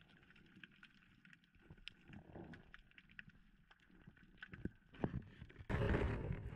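Underwater sound through a GoPro's waterproof housing as a speargun is handled among rocks and kelp: faint scattered clicks and knocks, then a sudden louder rush of water noise about six seconds in.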